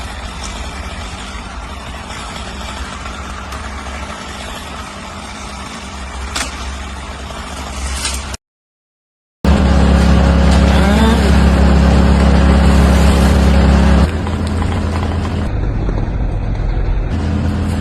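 Chainsaw engine running in several spliced clips: a noisy rumble, a one-second dropout to silence about eight seconds in, then a louder, steady, even-pitched engine drone that drops in level about fourteen seconds in.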